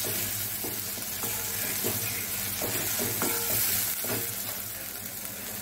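Ground spice paste sizzling in hot mustard oil in a kadai while being fried down, stirred with a wooden spatula that scrapes across the pan in repeated short strokes.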